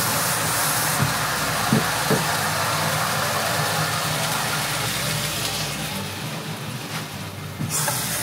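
Water running in a steady stream as it is added to a cooking pot, 1.4 litres for a curry. The flow eases off about six seconds in and picks up again near the end.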